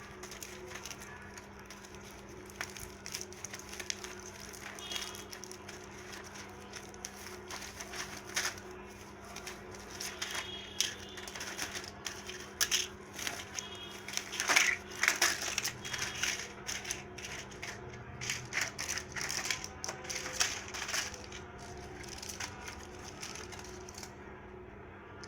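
Packaging and medicine packs being handled: irregular crinkling, rattling and clicking that is busiest about halfway through, over a steady low hum.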